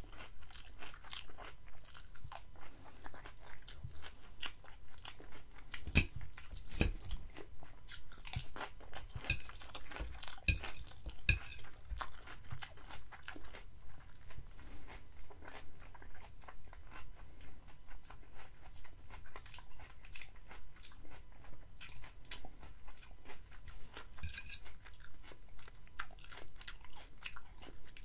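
Close-miked chewing of a leafy green salad, with steady rhythmic crunching and wet mouth sounds; a few louder crunches come in the first half.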